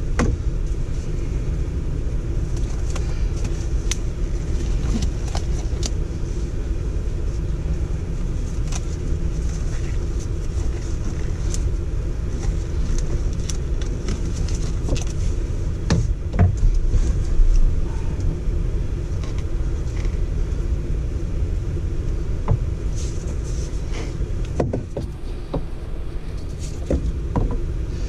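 Steady low rumbling background noise, with scattered light clicks and knocks of plastic PVC conduit fittings and a cement can being handled, and a louder bump about two-thirds of the way through.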